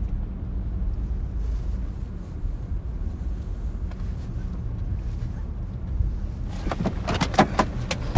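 Steady low rumble of a car driving, heard from inside the cabin. A quick run of sharp clicks and knocks comes near the end.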